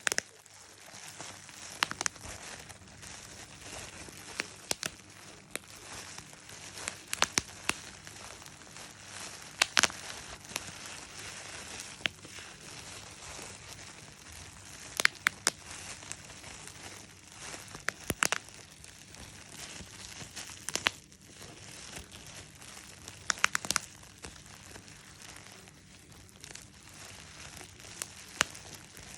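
Bubble wrap being handled and popped: sharp pops at irregular intervals, often two or three in quick succession, over the crinkling of the plastic sheet.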